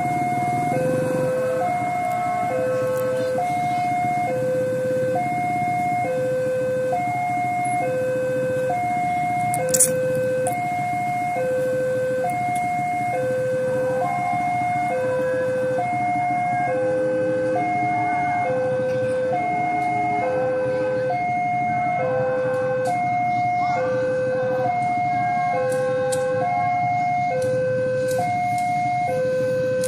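Railway level-crossing warning alarm sounding, two electronic tones alternating low and high about once a second, the signal that a train is approaching. Motorcycle engines idle underneath, and there is a single sharp click about ten seconds in.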